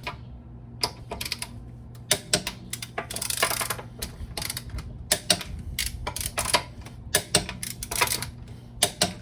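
Hand tools clicking and knocking on metal, including a ratchet wrench being worked, with a run of quick ratchet clicks about three seconds in.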